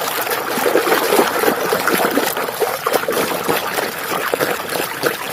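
Water trickling and splattering steadily over a muddy toy bus as it is washed.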